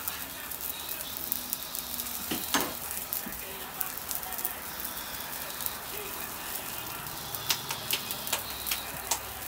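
Pupusas sizzling and crackling on a hot flat-top griddle. There are a few sharper clicks about two and a half seconds in and again near the end.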